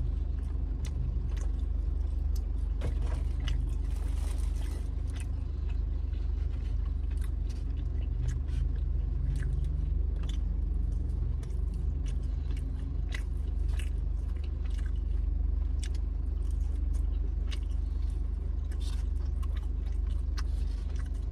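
Eating sounds: chewing, with a fork scraping and clicking in a small plastic cup, over a steady low rumble of a car's cabin.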